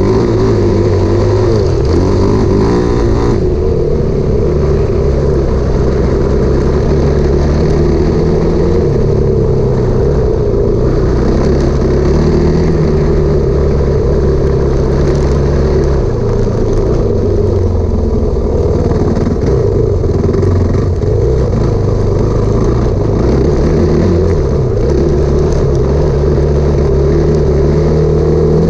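Dirt bike engine running hard on the move, heard from the bike itself, its pitch rising and falling as the throttle opens and closes.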